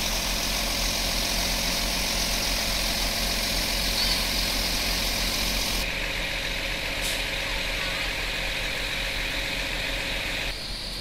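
Magirus Iveco fire engine running steadily at idle, a constant low engine hum with a hiss over it. The level drops slightly about six seconds in.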